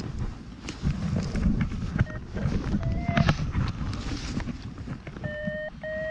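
Handling noise: a coat's fabric rubbing and knocking against the camera's microphone as the camera swings, with wind buffeting. About five seconds in, a few short steady notes sound one after another, each a little higher than the last.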